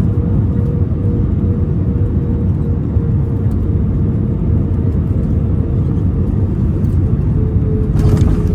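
Airbus A320 cabin noise: a steady low rumble of engines and airflow or rolling, with a steady hum that dips slightly in pitch near the end.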